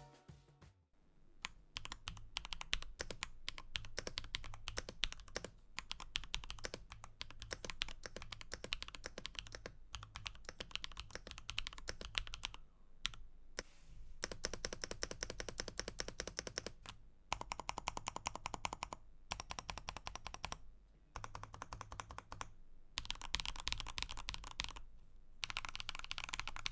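Typing on a custom 3D-printed mechanical keyboard, whose case is dampened with foam and fitted with a metal weight: rapid key clicks in bursts, with short pauses between them.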